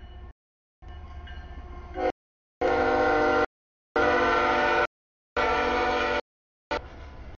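CSX freight locomotive's air horn sounding a crossing signal: after a low engine rumble, three loud blasts of under a second each start about two and a half seconds in, then a short blast near the end, as the train reaches the grade crossing. The audio drops out completely between the blasts.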